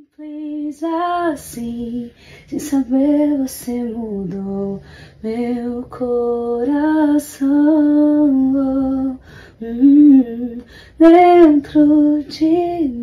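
A woman singing unaccompanied or nearly so, in phrases of long held notes that slide between pitches, with short breaths between the phrases.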